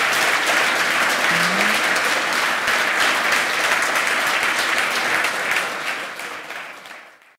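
Audience applauding, a dense steady clatter of many hands clapping that fades out near the end.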